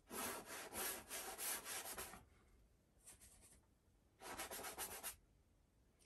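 Paintbrush scrubbing oil paint onto a stretched canvas in quick, short strokes: a run of about two seconds, a faint brief touch about three seconds in, then another run about a second long.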